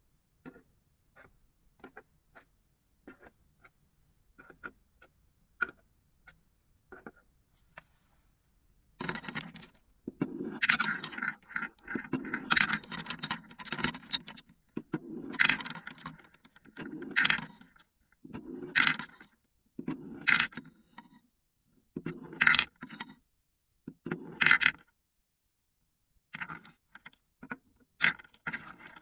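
Light taps as small plastic cups are set down one at a time. From about nine seconds in, about eight clattering bursts of balls rolling down a wooden chute and rattling around a wooden bowl, with a wooden spoon scraping the bowl.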